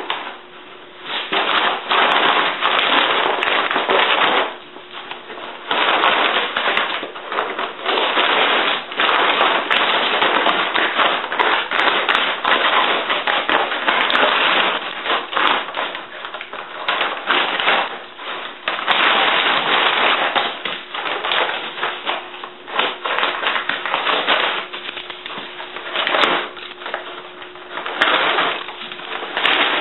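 Brown paper grocery bag crinkling and tearing as a Jack Russell terrier rips at it with teeth and paws, in loud bursts of crackling with short pauses.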